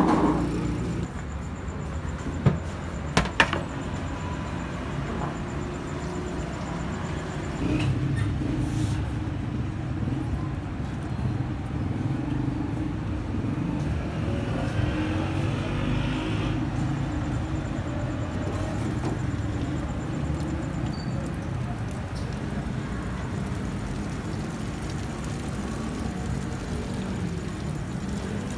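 Steady low rumble of street traffic, with a few sharp knocks about three seconds in.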